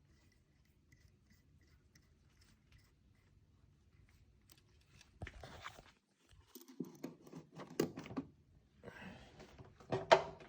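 Tools and metal parts being handled on a diesel injection pump: faint at first, then from about halfway a run of clicks and short scraping, rustling sounds, with a sharp click near the end.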